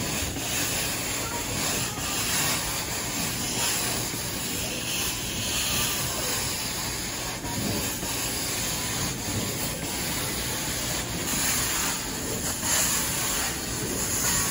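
Carpet-cleaning hot-water extraction wand spraying hot water into the carpet and vacuuming it back up: a steady hiss of spray and suction that dips briefly every few seconds as the wand is worked in strokes across the carpet.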